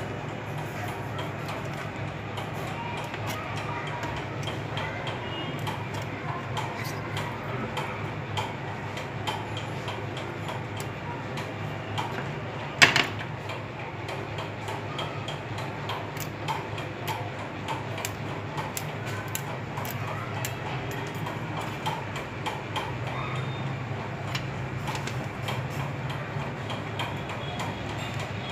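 Faint, irregular small clicks and taps from handling a mobile phone's circuit board over a steady low hum, with one sharper click about 13 seconds in.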